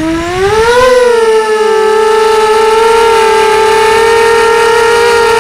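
QAV250 quadcopter's brushless motors and propellers spinning up for takeoff, heard close-up from the drone itself. The whine rises in pitch through about the first second, then holds steady as it flies.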